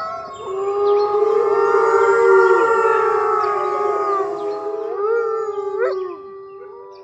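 Wolves howling in chorus: several long, overlapping howls that rise and fall in pitch, fading out near the end.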